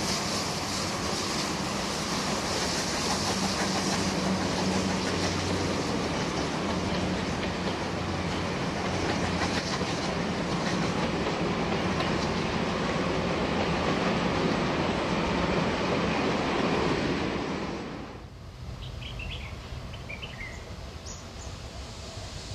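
Passenger carriages of a steam-hauled train rolling past, their wheels running on the rails in a steady, dense rolling noise. About three-quarters of the way through it cuts off sharply to a much quieter background with a few faint high chirps.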